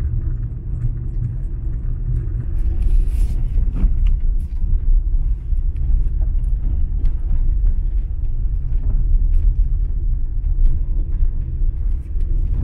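Steady, loud low rumble of a car driving on the road, with faint scattered clicks and knocks; it stops abruptly.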